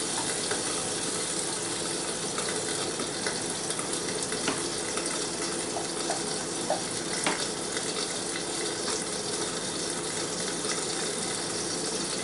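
A steady rushing hiss with a faint hum underneath, and a few light clicks and taps of a utensil against a saucepan as eggs are stirred.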